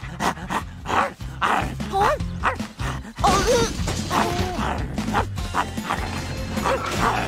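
A cartoon wolf pup barking and yipping several times, over background music.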